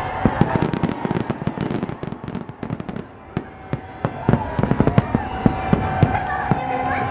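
Fireworks display: a rapid barrage of aerial shells bursting with sharp bangs and crackling. The barrage eases off for a moment in the middle, then comes back just as dense.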